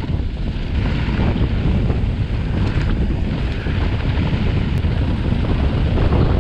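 Heavy wind buffeting on an action camera's microphone as a downhill mountain bike runs fast down a loose pumice track, a steady deep rush mixed with the rumble of the tyres on the dirt.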